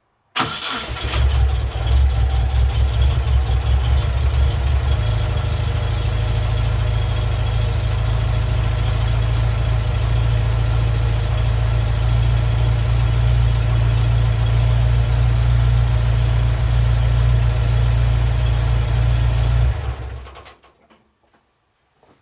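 1973 Datsun 510's inline four-cylinder engine, still on its carburettors and original distributor ignition, starting and running steadily at idle, its low note changing about five seconds in, then switched off suddenly near the end.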